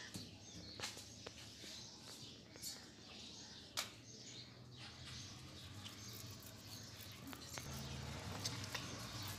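Fingernails picking nits from hair: scattered faint sharp clicks and light rustling of hair between the fingers.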